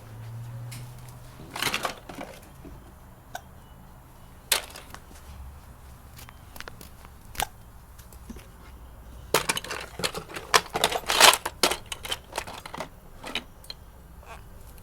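Scattered sharp clicks and knocks, with a dense flurry of them from about nine to thirteen seconds in.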